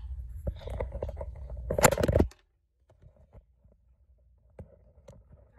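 Handling noise from a phone being moved and turned over in the hand: a low rumble with rubbing and scraping on the microphone. It is loudest about two seconds in, then cuts off suddenly, leaving a few faint ticks.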